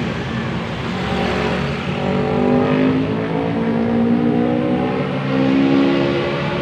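Indonesian bus 'basuri' telolet horn playing a tune of held notes that step from pitch to pitch, over the running of a bus engine.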